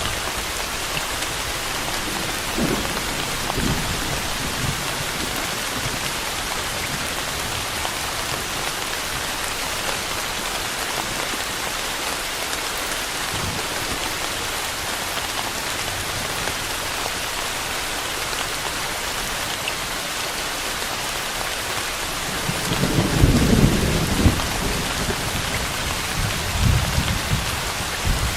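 Steady rain falling, an even hiss throughout, with low rumbles of distant thunder: faint ones early on and a louder roll about two-thirds of the way through, then another near the end.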